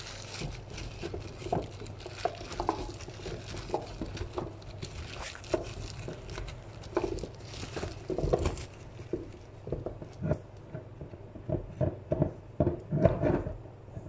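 Raw butternut squash cubes being tossed by a gloved hand in a baking tray, rubbing in harissa: irregular soft knocks of the pieces against the tray and each other, with a quicker run of louder knocks near the end.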